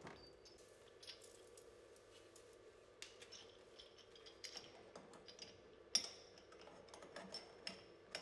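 Faint metallic clicks and clinks of a stainless hose coupling and clamp being handled at a brewing tank's outlet fitting, the sharpest about six seconds in, over a faint steady machine hum.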